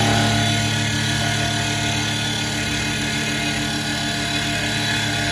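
CNC wood lathe running: a steady motor hum from the spinning spindle, with the hiss of the cutter shaving a turning wooden blank.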